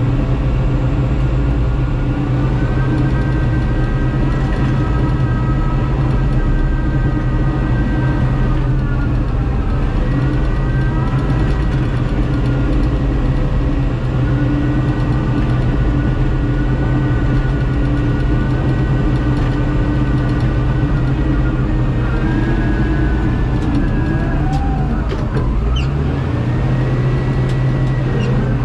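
Heavy machinery's diesel engine running continuously at steady revs, with a whine over the low rumble. The pitch sags briefly and comes back up twice, about a third of the way in and again near the end.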